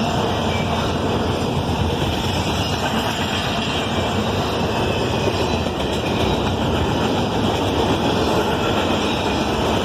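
Freight train of intermodal cars rolling past, a steady rumble of steel wheels on rail with no horn sounding.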